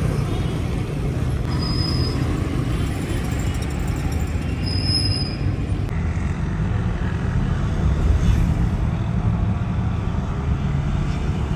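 Road traffic heard from a moving car: a steady low rumble of engine and road noise, with a couple of brief high squeaks early on.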